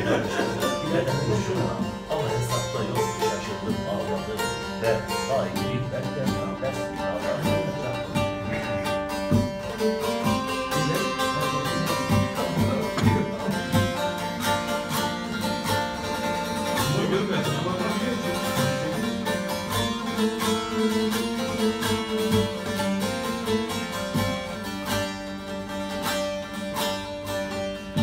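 Bağlama (Turkish long-necked saz) playing an instrumental passage of a folk song, with rapid plucking over a steady drone.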